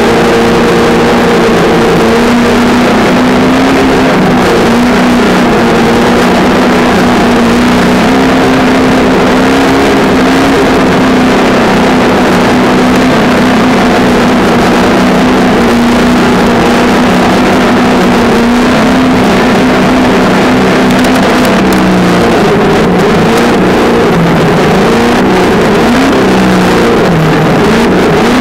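Traxxas On-Board Audio speaker on a Traxxas Slash 2WD RC truck playing a simulated V8 engine note, heard from a camera mounted on the truck over a broad rushing noise. The note holds steady for most of the stretch, then rises and falls over and over in the last several seconds as the throttle is worked.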